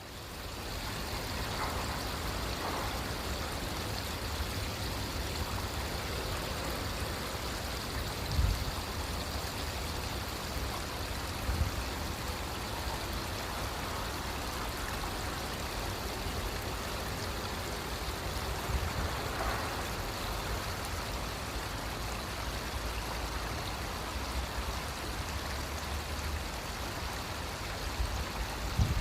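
Steady rushing of flowing water, with a low rumble underneath and a few brief low thumps, about eight and eleven seconds in and again near the end.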